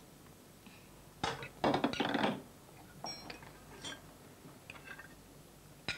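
Cutlery and dishes at a meal: knives and forks scraping and clinking on plates, with a louder clatter about a second in and a few small clinks after it.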